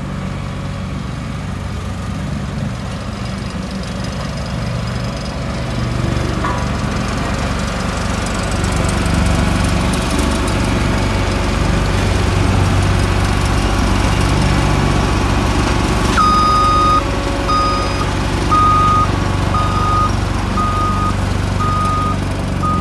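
Ingersoll Rand SV70 single-drum roller's diesel engine running steadily as the smooth steel drum rolls over dirt. From about two-thirds of the way through, its reversing alarm beeps a little faster than once a second.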